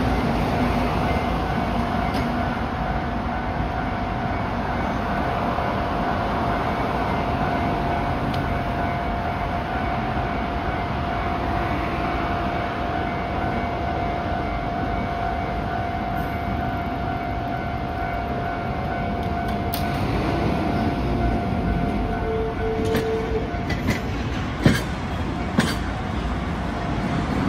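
Train running on the rails, a steady drone with a held tone, and a few sharp clicks near the end.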